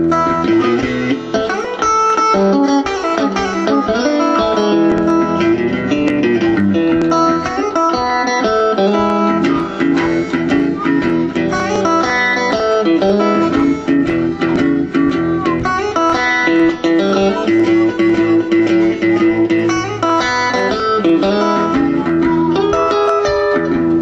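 Blues played on electric guitar and harmonica together, with held, bending harmonica notes over picked guitar.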